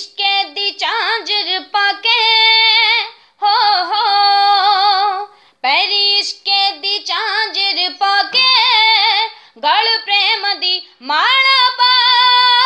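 A young girl singing a Punjabi Sufi song unaccompanied, in long drawn-out phrases with held notes that waver in pitch, broken by short pauses for breath.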